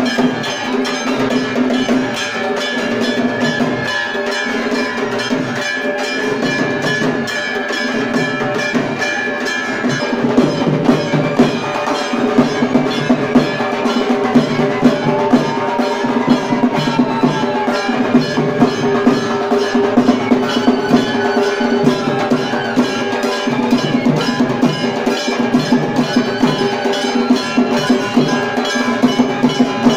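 Percussion music with ringing, bell-like metal strikes over steady sustained tones. The strikes grow louder and more regular from about ten seconds in.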